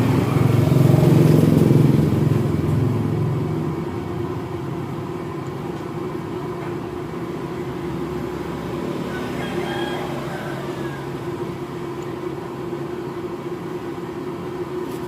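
A motor vehicle engine running, loudest for the first two or three seconds and then settling into a steady hum.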